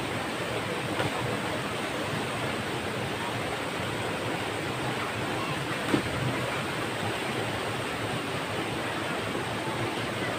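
Steady rushing of river water, an even noise without a break. A single short knock about six seconds in.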